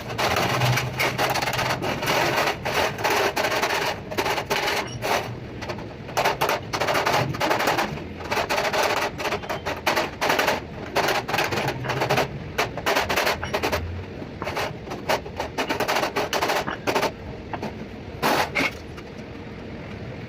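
Hammer blows on the sheet-metal body of an evaporative air cooler, struck in quick runs with short pauses between them, as the dents are beaten flat.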